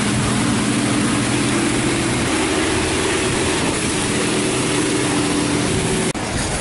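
Touchless car wash machinery (a D&S i5000) running in the wash bay: a loud, steady rush of noise over a low machine hum.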